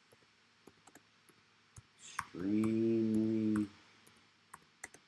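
Scattered sharp clicks from computer work, with a man's voice holding a steady hum or drawn-out "uhh" for over a second about two seconds in.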